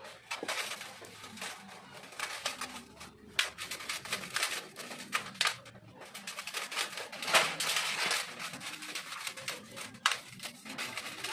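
Irregular clicks, taps and scrapes of hand tools and small metal parts as a scooter carburetor's float bowl is unscrewed and opened.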